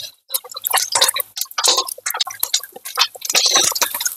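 Egg frying in hot oil in a stainless steel wok: the oil crackles and spits continually, with a metal spatula working under the egg against the wok.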